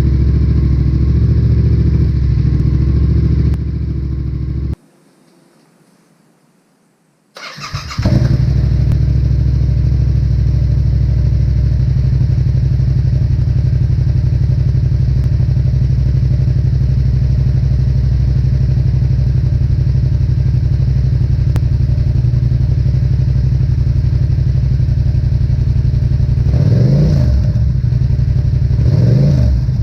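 Yamaha XSR700's 689 cc parallel-twin engine running through a Black Widow aftermarket exhaust. It idles, cuts out about five seconds in, and is quiet for about three seconds. It then starts again and settles into a steady idle, with two short throttle blips near the end.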